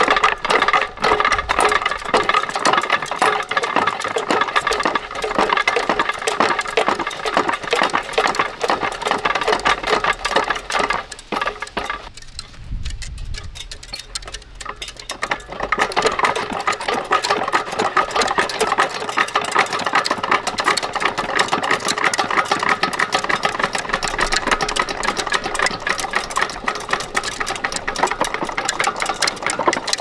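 Westinghouse Comet ceiling fan running, its blades fitted without their mounting brackets, giving a rapid, even mechanical clatter. The clatter quiets for a few seconds about halfway through, then picks up again.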